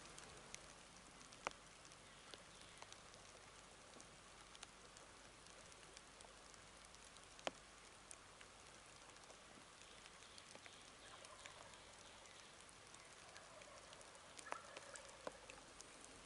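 Faint light rain with scattered raindrop ticks. Near the end, a few faint gobbles from distant wild turkeys.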